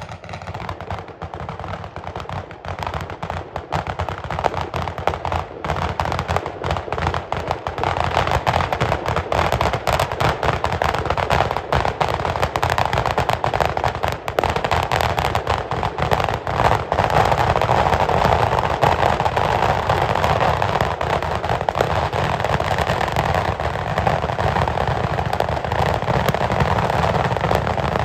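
Sicilian ground firecracker battery going off as a rapid, continuous chain of bangs. It grows denser and louder over the first half and then holds at full intensity.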